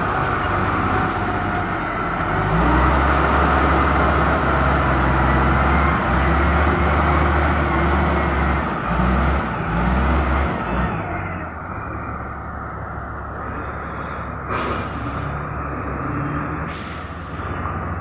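Wheel loader's diesel engine working, a loud deep rumble that eases to a quieter run about eleven seconds in.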